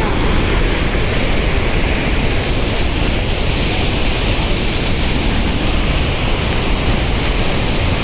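Floodwater rushing out of open dam spillway gates and churning over the baffle blocks below: a loud, steady rush of water.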